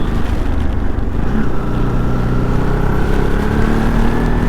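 Motorcycle engine running on the move, its pitch rising gradually as the bike gathers speed, with a heavy low rumble of wind on the microphone.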